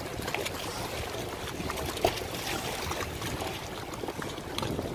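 Lakeside beach ambience: small waves lapping against a concrete shore, with wind on the microphone. A single sharp knock about two seconds in.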